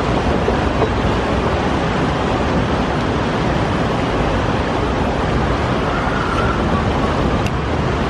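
Water rushing steadily down the concrete channel of a river rapids ride, a continuous loud wash of whitewater.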